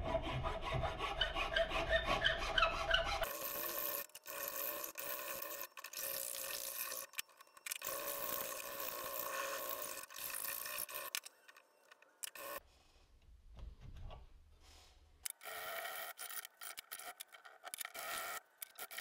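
A strip of abrasive rubbed back and forth across a wooden tomahawk handle clamped in a vise, stroke after stroke. A low hum lies under the first few seconds, and the rubbing pauses briefly twice in the second half.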